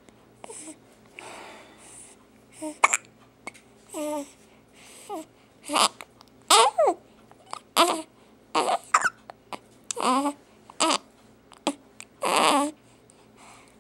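A person hiccuping again and again: about a dozen short, sudden voiced catches at irregular gaps, some breathier than others.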